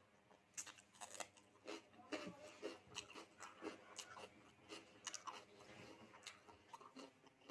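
Close-up eating sounds: a person chewing food, with irregular soft mouth clicks and smacks several times a second.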